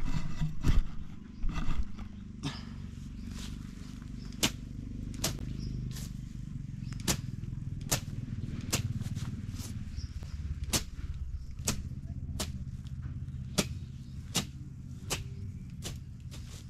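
A slasher blade swung low through short grass, each stroke a sharp swish-and-cut, at about one stroke a second over a steady low rumble. Near the start there are a few louder, busier knocks.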